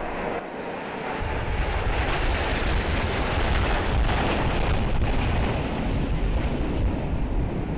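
Formation of Alpha Jet trainer jets passing overhead: a broad jet roar that swells about a second in, is loudest in the middle and eases slightly toward the end.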